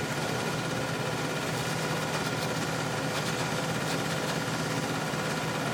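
Vehicle engine idling steadily, a constant low hum with a thin steady whine over it.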